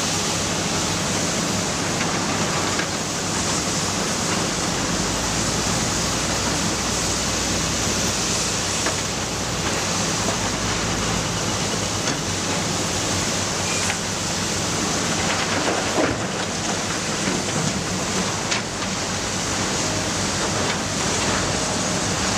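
Matador ME315 excavator running under load: a steady heavy drone of engine and hydraulics, with a few knocks of rock a little past the middle.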